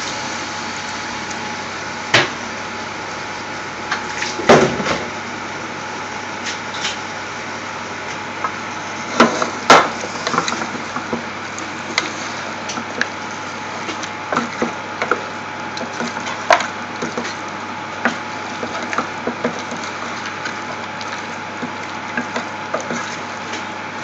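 A spoon knocking and scraping against a steel saucepan as raw chicken pieces are stirred into a spice mix, in irregular clicks and knocks, the loudest at about 2, 4½ and 10 seconds in, over a steady hiss.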